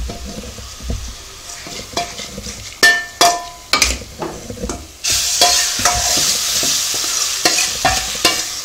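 Steel spoon scraping and knocking against a steel kadai as a hot ghee tempering is scraped into cooked foxtail millet pongal. From about five seconds in, a steady sizzle as pongal stirred in the hot, ghee-coated kadai fries.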